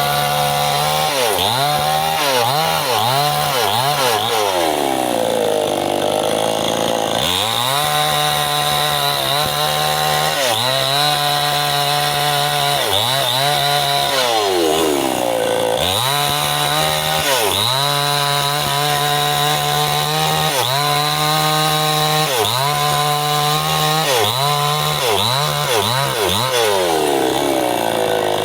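Stihl two-stroke chainsaw bucking a bendo log, run mostly at high revs. Its pitch dips and climbs back again and again, with three longer, deeper drops: about a fifth of the way in, just past the middle and near the end.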